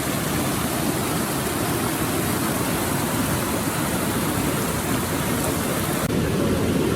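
Water rushing steadily over the rapids of Popa Falls on the Okavango River, growing slightly louder near the end.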